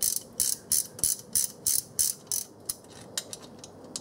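Hand ratchet clicking in short bursts, about three a second, thinning out near the end, as it runs down the lower intake manifold bolts on a GM 3.8-litre 3800 V6.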